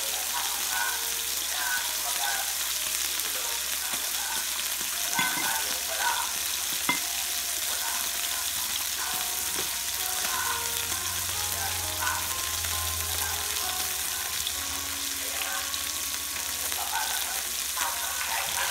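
Hida beef sizzling on a tabletop yakiniku grill: a steady frying hiss, with a few sharp clicks about five to seven seconds in.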